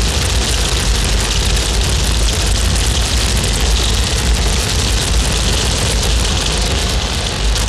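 Harsh noise music from a Eurorack modular synthesizer: a loud, dense, steady wall of noise with a heavy low rumble under bright hiss, and no clear beat.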